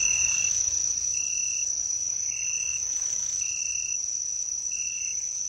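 Insects chirping: a steady high trill, with a lower chirp repeating evenly five times.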